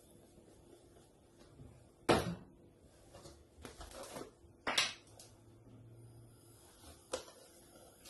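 Clunks of kitchenware being handled and set down: a sharp knock about two seconds in, another just before five seconds, and a lighter one about seven seconds in.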